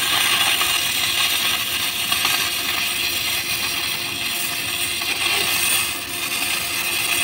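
Arc of an E6010 stick electrode laying a root pass on pipe: a steady crackling hiss.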